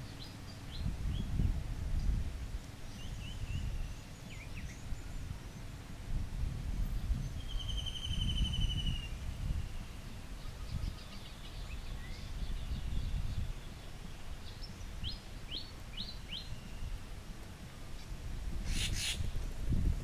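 Outdoor pond ambience: a low, uneven rumble with scattered short bird chirps and whistles over it, including a trill about 8 seconds in and a quick run of high notes around 15–16 seconds.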